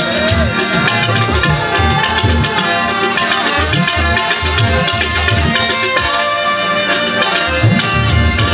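Instrumental interlude of a ghazal: tabla playing a steady rhythm, the bass drum's strokes bending in pitch, under a sustained melody on harmonium and violin.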